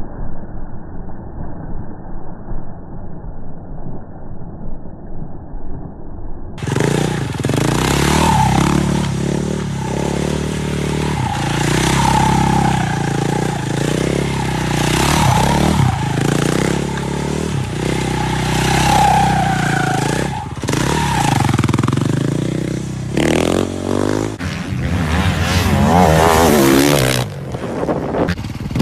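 Motorcycle engines revving and running, with tyres scraping as the bikes are slid around a paved lot. The pitch climbs and drops with the throttle. The sound is dull and muffled for the first six seconds, then jumps abruptly to a fuller, louder engine sound.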